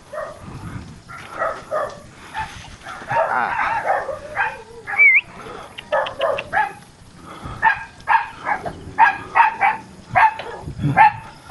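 Dog barking over and over in short sharp barks, coming thickest and loudest in the second half.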